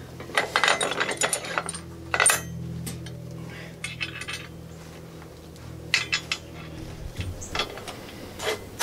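Steel washers and a large steel pivot pin clinking and rattling against a backhoe thumb's steel jaw as they are fitted by hand, in several short bursts of clinks.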